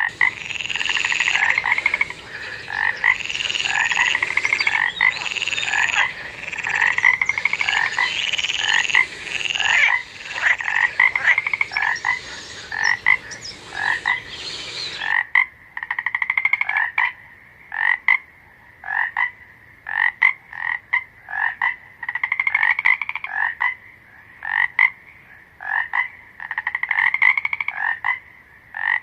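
Frogs croaking: short, trilled calls repeating about once or twice a second. About halfway through the background hiss drops out abruptly while the calls go on.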